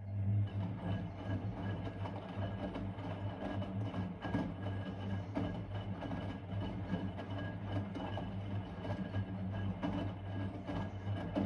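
Blomberg WA391 front-loading washing machine during a 90 °C boil wash: a motor in the machine starts abruptly and runs with a steady, even hum.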